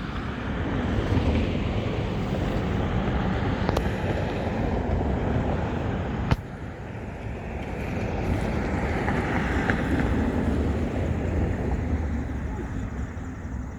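Wind buffeting the microphone in a steady low rumble, with two sharp handling clicks about four and six seconds in.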